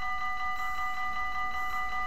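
Level crossing warning bell ringing continuously with fast, even strokes, several a second, over a steady ringing tone. It is the crossing's signal that a train is approaching, with the barriers down.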